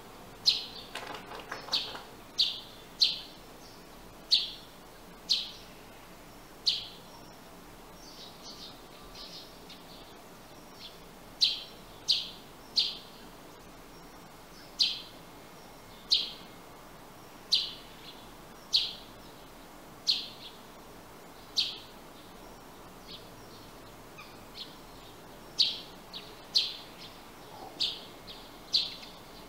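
Sparrow chirping: single short, sharp chirps repeated about once a second, with a pause of a few seconds about a third of the way in.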